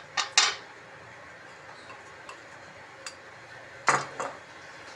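Spoon and bowls clinking as a flour mix is tipped from a glass bowl into a steel mixing bowl: two sharp clinks just after the start and two more about four seconds in, when the glass bowl is set down.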